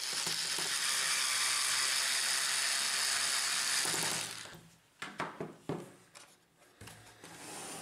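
Cordless electric screwdriver running for about four seconds as it drives in screws, then stopping. A few short clicks follow about a second later.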